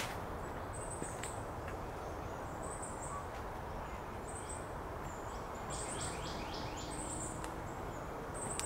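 Birds calling in woodland: short high chirps repeating about once a second, with a quick run of falling notes about six seconds in, over a steady low outdoor rumble. A single sharp click sounds right at the start.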